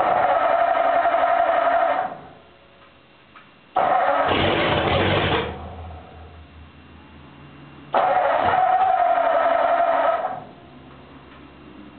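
Starter cranking a cold Ford flathead V8 in three bursts of about two seconds each, with quiet pauses between. Each time it stops again without the engine settling into a run: a cold start at about 3°C that is struggling to catch while the throttle and choke are still being found.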